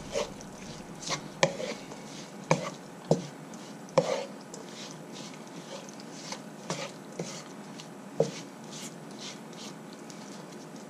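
Wooden spoon stirring minced turkey in a non-stick wok: irregular knocks and scrapes of the spoon against the pan, a few louder clacks in the first half.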